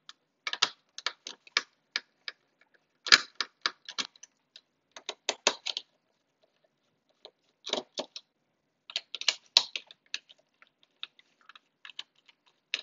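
Small Phillips screwdriver backing screws out of the plastic gripper housing of an Omnibot 5402 robot arm: irregular runs of light clicks and ticks in clusters, with short pauses. One sharper, louder click comes about three seconds in and another about nine and a half seconds in.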